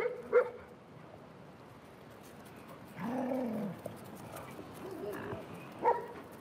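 Dogs vocalising while they play: a short bark right at the start, one low drawn-out moan that rises and falls about three seconds in, and a short sharp bark near the end.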